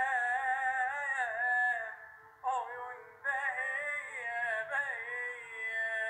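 A single voice singing without accompaniment: a wavering, ornamented melody broken by two short breaths about two and three seconds in.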